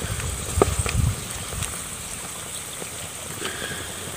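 Wood cooking fire crackling faintly under a pot of crabs, a few short pops over a steady low hiss, with a low rumble in the first second or so.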